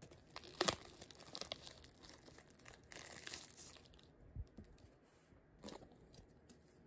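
Clear plastic shrink-wrap crinkling and tearing as it is peeled off a paper instant-soup cup, loudest about a second in. A soft thud about four and a half seconds in as the cup is set down, then another short crinkle.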